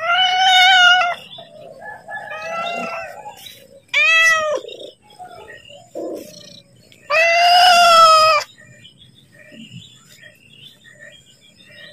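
Domestic cat meowing repeatedly, asking to be fed: a loud meow at the start, a few softer and shorter meows, then a long loud meow about seven seconds in.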